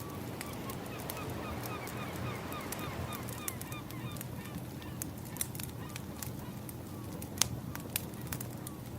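A bird calling in a quick series of short, slightly downward-bending notes, about three or four a second, fading out about six seconds in. Underneath, a wood fire crackles and pops over a steady low rush of waves.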